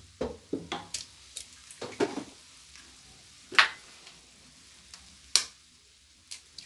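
Eggs being cracked against a glass mixing bowl: sharp taps of eggshell on the glass, with smaller clicks and knocks of shell and a fork on the bowl between them. The two loudest taps come about halfway through and again a couple of seconds later.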